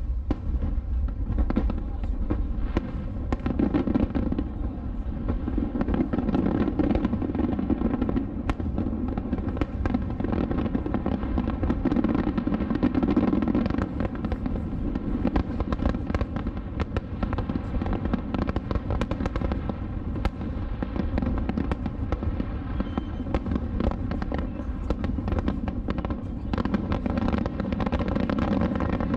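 Dense barrage of aerial firework shells bursting, many overlapping bangs and crackles in quick, irregular succession that run together into a continuous rumble.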